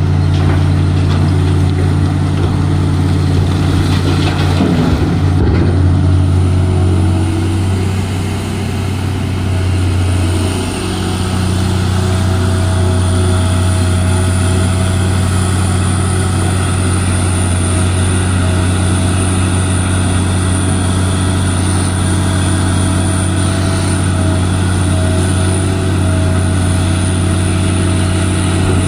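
Large diesel engine of heavy mining machinery running steadily with a deep drone. A faint steady whine joins about twelve seconds in.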